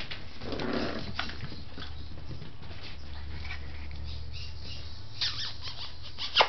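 Seven-week-old Scottish terrier puppies playing: a brief puppy sound about half a second in, then scattered clicks of small paws and claws on the vinyl floor, with one sharp click just before the end. A steady low hum runs underneath.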